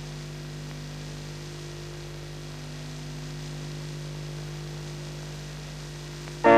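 Steady electrical mains hum and buzz on the old tape's audio track, heard in a gap in the music. Loud music comes in abruptly at the very end.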